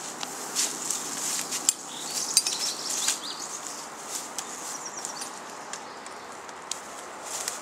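Footsteps rustling through tall grass and brush, with irregular clicks and clinks of carried rifles and gear.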